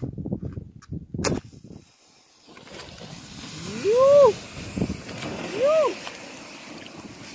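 A match scraped against its box a few times, with a sharp strike about a second in. From halfway through, the match heads of a matchstick sculpture catch one after another in a growing hiss of flame. Two loud rising-and-falling 'whoo' cries of excitement come over the flare-up.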